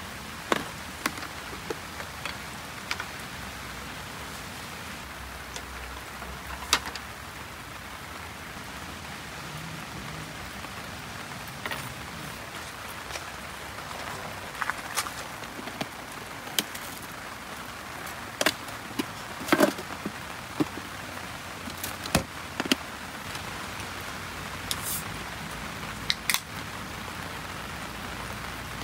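Steady rain falling, with scattered sharp clicks and knocks as a plastic lunch box's latches and lid and dishes are handled on a metal camp table.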